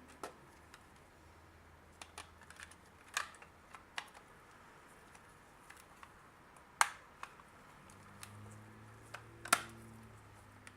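Irregular clicks and taps of small plastic parts being handled, as an opened digital multimeter is worked on by hand, with two louder knocks, one about seven seconds in and one near the end.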